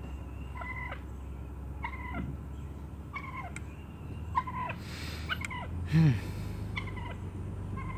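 Wild turkey tom booming: a short puffing hiss about five seconds in, then a deep note that falls in pitch about a second later, the loudest sound. Short high chirping calls recur about once a second over a steady low hum.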